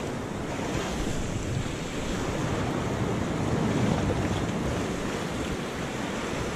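Sea surf washing and foaming against a rocky shore, with wind buffeting the microphone.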